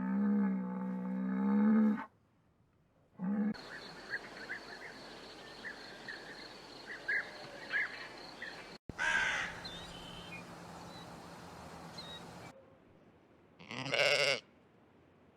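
Animal calls cut together from separate clips. First comes a pitched, wavering call about two seconds long, then a stretch of outdoor background with short bird chirps, and later two brief calls.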